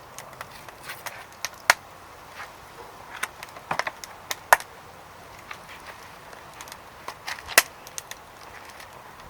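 Wood fire burning in a secondary-combustion fire pit, crackling with irregular sharp pops, three of them louder than the rest.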